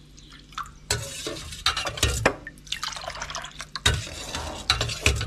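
Steel ladle stirring coconut milk mixed with kokum water in a steel bowl: the liquid sloshes, with sharp clinks of ladle against bowl about a second in and again near four seconds.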